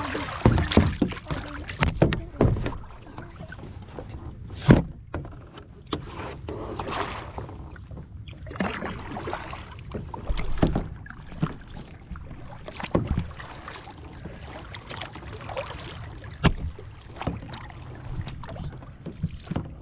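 Kayak paddling: the paddle blades swish and splash through the water stroke after stroke, with irregular knocks and thumps, the loudest a little under five seconds in.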